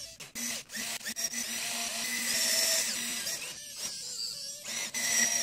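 Small electric Lego Technic motors whining as they drive the excavator's peristaltic hydraulic pumps, starting and stopping as the boom and bucket move. There are a few sharp clicks in the first second, and a short break in the whine about three and a half seconds in.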